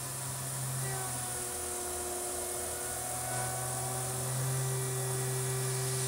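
Tormach 770M CNC mill's spindle turning a 1/2-inch three-flute bull-nose end mill at 8,000 RPM, rough-milling a metal block: a steady hum, with a steady high whine coming in about a second in as the cutter bites, growing a little louder past the middle.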